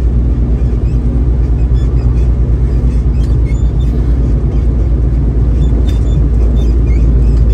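Heavy truck's engine running steadily under way, a loud low drone heard from inside the cab, getting slightly louder near the end.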